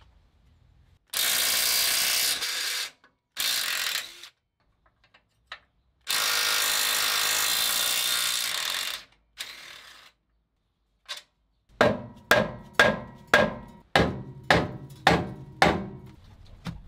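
A cordless impact wrench runs in three bursts, one about three seconds long, undoing the bolts of a gearbox crossmember. Then about ten hammer blows, roughly two a second, ring on the metal crossmember, knocking it loose.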